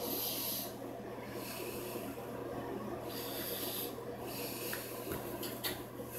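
A person breathing close to the microphone: short bursts of breathy noise about every second and a half, over a steady low hum.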